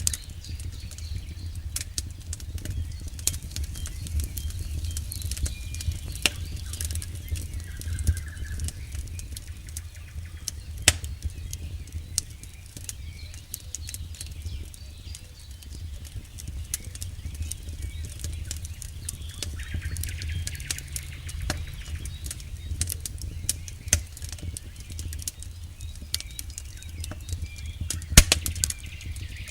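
Firewood burning in an open campfire: irregular crackling and sharp pops from the burning wood over a steady low rumble of the flames, with a few louder snaps about 11 seconds in and near the end.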